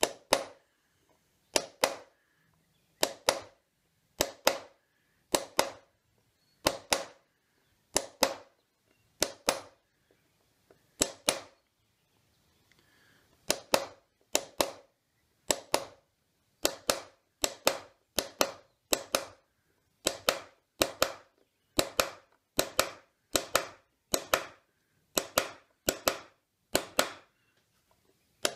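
Small hammer tapping a steel background punch into wood, texturing the recessed ground of a carved strapwork panel. Sharp taps come in quick pairs, about one pair a second, with a pause of about two seconds partway through.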